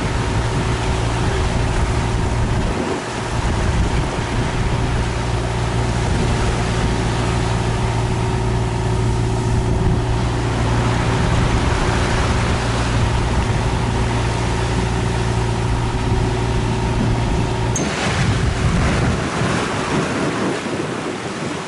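A sailboat's engine running at a steady hum under wind buffeting the microphone and waves splashing in rough sea. About eighteen seconds in the engine hum cuts off suddenly, leaving wind and breaking waves.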